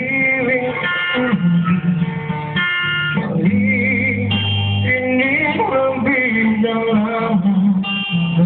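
A man sings to his own acoustic guitar accompaniment, holding some notes with a wavering vibrato.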